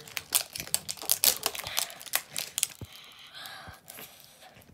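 Plastic wrapping on an L.O.L. Surprise ball crinkling and tearing as it is peeled open by hand: a quick run of crackles that thins out after nearly three seconds.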